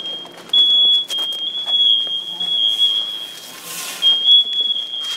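A steady high-pitched electronic alarm tone sounds on without a break. Over it come a few sharp clicks about a second in and a brief rustle near four seconds.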